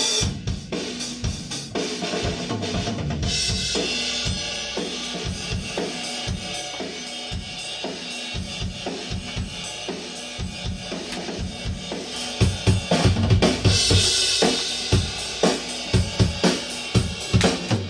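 Rock drum kit playing a groove on kick, snare, hi-hat and cymbals, together with an electric bass line. About twelve seconds in, the drumming gets harder, with sharp, loud hits.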